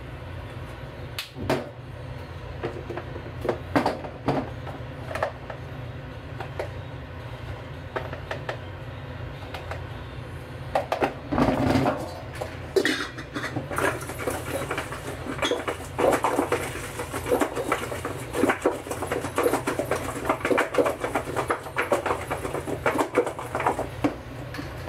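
Oil heating in a deep metal frying pan on a gas stove: a steady low rumble under scattered ticks and crackles, which grow denser and louder from about halfway through.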